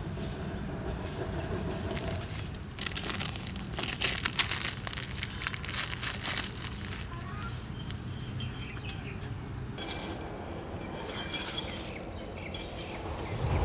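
A bird gives a short rising chirp four times, a few seconds apart. Between the chirps there is rustling and scraping in dry soil and leaves from hands and a machete blade working the ground.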